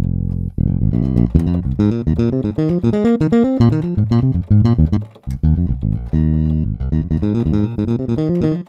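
Scarbee Jay-Bass, a sampled fingered electric bass, played as a key-bass line from a keyboard: a run of plucked bass notes with a longer held note at the start and another about six seconds in, with a brief break around five seconds. It sounds "really real", like a real bass player playing.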